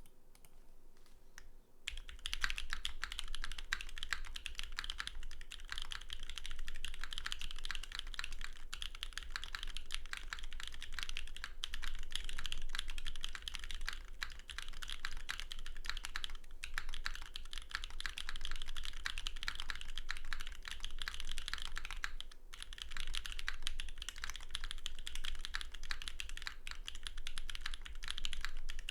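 Fast, continuous typing on a Protagonist WKL custom mechanical keyboard with lubed BSUN X switches and GMK Carbon R1 keycaps on an aluminium plate, gasket-mounted, with no foam. A few scattered key presses come first, then steady fast typing from about two seconds in, with a brief break about three-quarters of the way through.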